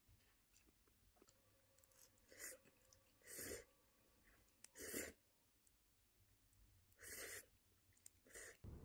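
Close-up eating sounds of someone slurping glass noodles (japchae): five short slurps a second or so apart, with faint mouth clicks between them.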